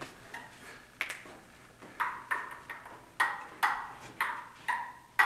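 Ping-pong ball being struck and bouncing on the table: a quick series of sharp, ringing clicks, a couple of faint ones at first, then louder ones about two a second from about two seconds in.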